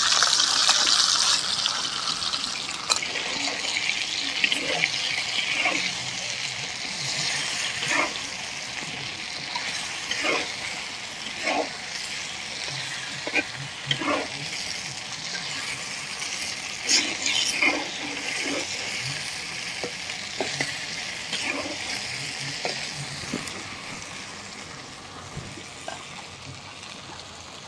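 Ground spice paste sizzling in hot oil around half-boiled chicken leg pieces, loudest at first and dying down. A metal spatula knocks and scrapes against the pan every second or two as the pieces are stirred.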